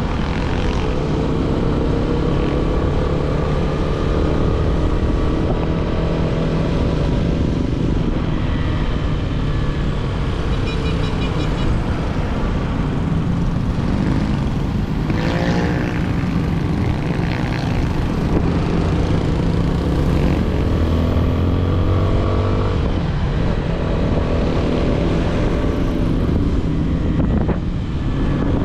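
Yamaha Sniper 155 single-cylinder engine through its stock exhaust while riding, its pitch climbing and dropping again and again with throttle and gear changes.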